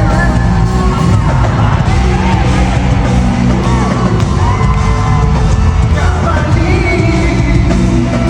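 Loud live concert music played over an arena PA, with a heavy bass-driven backing track, singing and crowd yells over it, recorded on a phone from among the audience.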